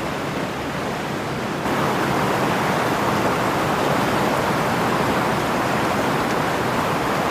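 Water rushing steadily over an ornamental cascade, a constant even hiss that grows louder about two seconds in.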